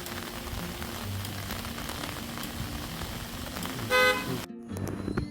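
A vehicle horn toots once, briefly, about four seconds in, over a steady hiss of rain and rushing floodwater that cuts off suddenly soon after. Faint background music runs underneath.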